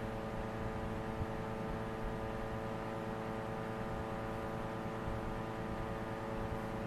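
Steady background hum made of several fixed tones over a low rumble and faint hiss, unchanging throughout.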